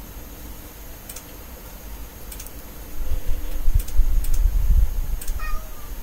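Low rumbling thumps of handling noise through the middle, a few light sharp clicks, and a single short pitched call near the end.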